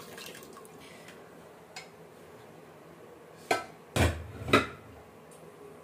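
Metal cookware clanking: a light knock, then three sharp metal clanks in about a second, the last the loudest.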